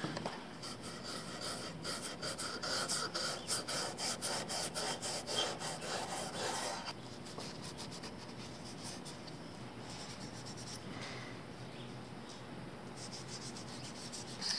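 Cloth rubbing oil into a Baltic birch plywood slingshot frame: quick back-and-forth wiping strokes, about four a second, turning fainter and sparser after about seven seconds.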